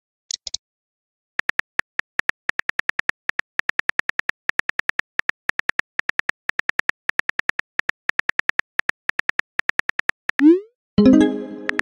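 Simulated phone-keyboard typing clicks, a fast run of identical, pitched taps, about seven a second in uneven bursts, as a text message is typed out. Near the end a short rising swoosh sounds as the message is sent, followed by a pitched chime.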